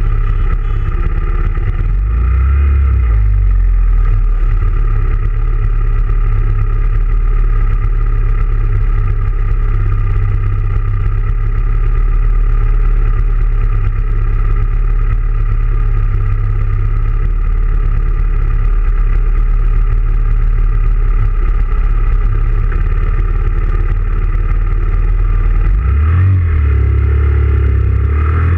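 Motorcycle engines idling steadily at a stop, led by the close, even idle of a Honda Grom's 125 cc single-cylinder engine, with sport bikes idling around it. Near the end the engines rev as the bikes pull away.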